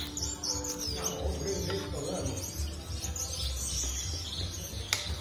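Background music of held notes with birdsong-like chirps over it, and one sharp click near the end.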